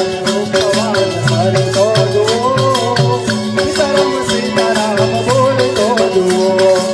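Devotional dhun (bhajan) music between sung lines: a melodic instrument plays the tune over a steady held drone note. Hand percussion and jingling rattles keep a steady beat.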